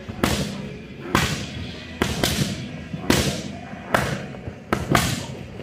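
Boxing gloves punching focus mitts: about eight sharp smacks, some in quick one-two pairs, each ringing on briefly in an echoing gym hall.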